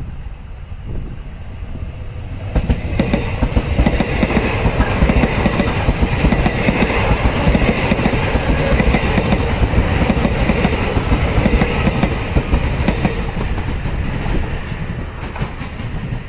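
A Taiwan Railways EMU800-series electric multiple-unit local train passing close by, its wheels clattering over the rail joints. It builds up sharply about two and a half seconds in and falls away near the end.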